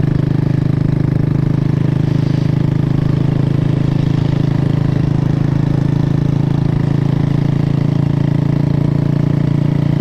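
Motorcycle engine running steadily at one unchanging pitch, with an even, fast firing pulse.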